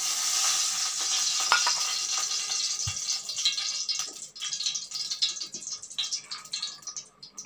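Cooking oil sizzling as it is poured into a hot kadai: a loud hiss that starts suddenly, fades after a couple of seconds, and settles into scattered crackling and pops.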